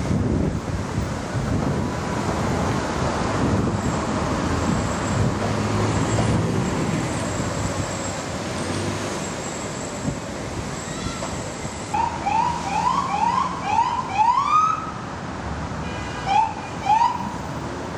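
Steady city traffic noise, then a police siren blipped in short rising whoops. It gives five quick chirps, about two a second, ending in a longer whoop, then two more chirps near the end.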